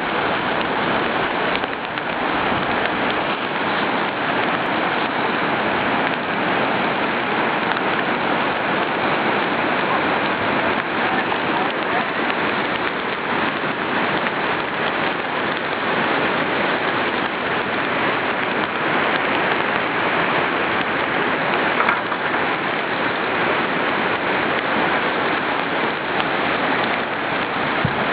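Whitewater rapids rushing steadily: a constant hiss of churning river water. A single brief knock stands out about three quarters of the way through.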